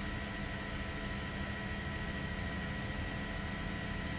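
Steady hiss with a low hum and faint steady high tones, unchanging throughout.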